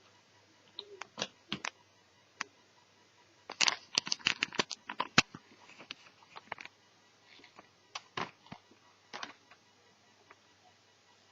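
Scattered clicks and taps of an Asus Eee PC netbook being handled, with a quick run of about a dozen clicks near the middle.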